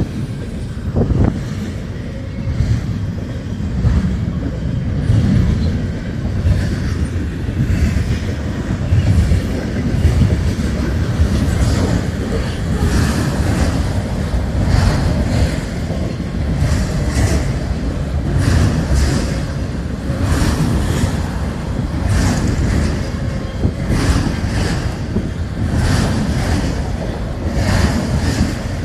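CSX freight train cars rolling past close by: a steady heavy rumble with a regular clickety-clack of wheels over rail joints, which grows more distinct about twelve seconds in.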